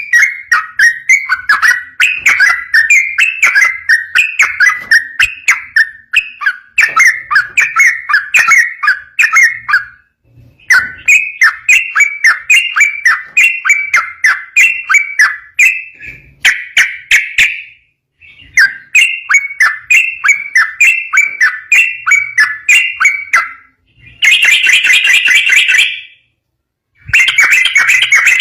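Yellow-vented bulbul (trucukan) singing long rapid runs of quick repeated bubbly notes, in several phrases broken by short pauses, with a denser, louder burst of song near the end.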